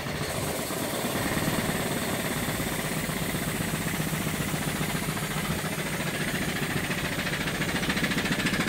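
Bumsted and Chandler high-speed steam engine, driving a Johnson & Phillips dynamo, running at half throttle, about 300 RPM: a fast, steady, even beat of the engine running. It comes up in the first second as the steam is turned on, then runs evenly.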